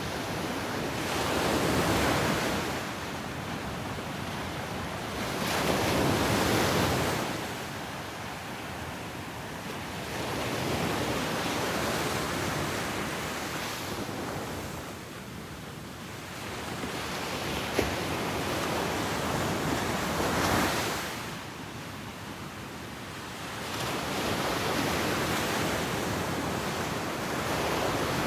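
Ocean surf: waves breaking on a beach and washing back, the hiss swelling and easing every four to five seconds.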